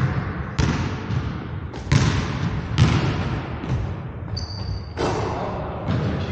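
A basketball bouncing on a hardwood gym floor, a dribble roughly once a second, each bounce echoing around the large hall. A brief sneaker squeak on the floor comes about four and a half seconds in.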